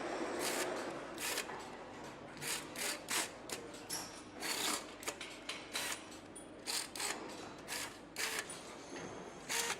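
Irregular metallic clicks and clacks of hand tools and parts being handled during hand assembly of an engine, over a steady background hiss of the workshop.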